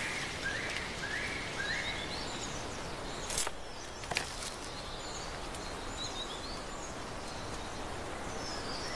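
Forest ambience: a steady hiss with small birds chirping. There is a run of four short rising calls in the first two seconds and scattered high chirps after that. Two sharp snaps come between about three and a half and four seconds in.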